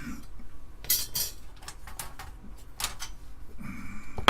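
Thin sheet-metal RF shielding on an Amiga 500 motherboard clinking and scraping as its tabs are twisted and pried loose, with a scrape about a second in, a few light clicks after it and a sharp click at the end.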